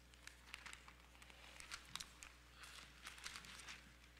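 Faint, irregular rustling and crinkling of thin Bible pages being turned, over a low steady hum.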